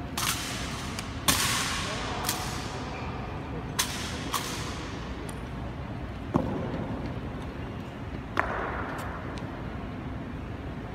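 Ceremonial honour guards' drill: about seven sharp strikes from rifles being handled and boot heels stamping, irregularly spaced, each one echoing in a stone hall.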